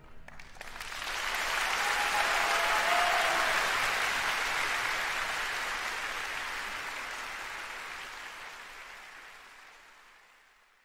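Audience applauding, swelling about a second in and then slowly fading away.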